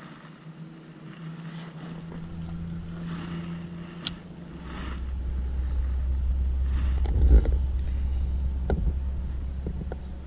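Low engine rumble that swells over a few seconds and then fades, like a passing motorboat, with a sharp click and a few light knocks along the way.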